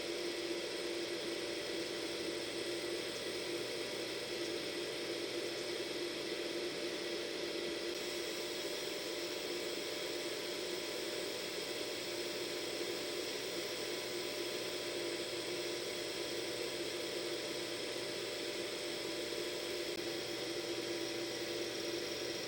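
Hair dryer running steadily: an even blowing hiss with a constant motor hum.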